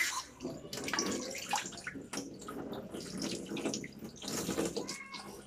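Water running from a tap and splashing unevenly as a soap foaming net is wet under it.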